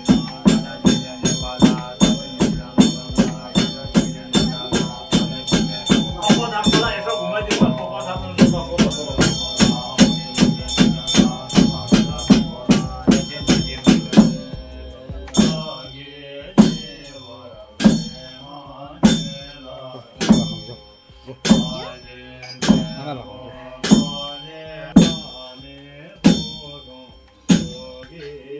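Large Tibetan Buddhist ritual frame drum (nga) beaten in a steady fast rhythm, about two or three strokes a second, then slowing about halfway through to about one stroke a second, each stroke ringing on.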